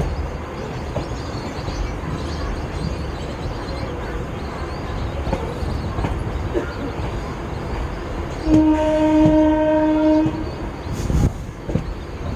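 EMU electric local train running, heard from on board: a steady rumble of wheels on track with scattered clicks over rail joints. About eight and a half seconds in, a train horn sounds one steady blast of nearly two seconds.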